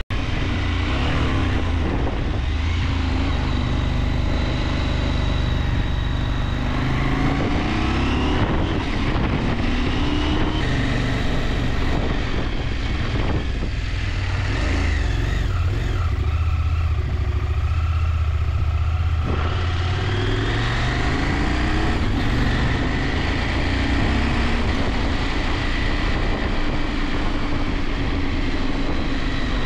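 Motorcycle engine running while under way. The engine note rises and falls a few times, with a noticeable rise about two-thirds of the way through.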